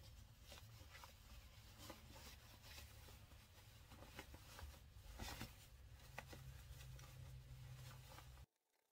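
Faint rustling and light handling noises of sewn fabric being turned right side out through its opening, over a low steady room hum. The sound cuts off abruptly near the end.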